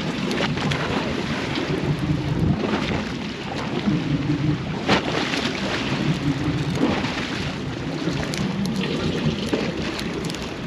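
Boat engine rumbling under wind buffeting the microphone, with a brief sharp knock about halfway through.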